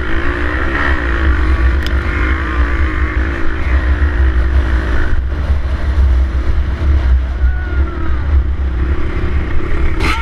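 Small dirt bike engine running, its pitch wavering up and down with the throttle, over a heavy low rumble. A sharp knock comes near the end.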